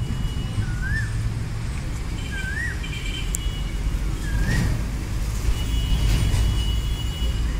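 Low rumble of a freight train still far off down the line, swelling a little past the middle, with a bird calling three times, each a short whistle that rises and falls. Thin steady high tones come and go over it.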